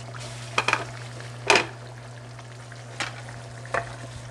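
Chicken and potatoes sizzling softly in a frying pan while a wooden spatula stirs them, making about five short scrapes and knocks against the pan, the loudest about one and a half seconds in. A steady low hum runs underneath.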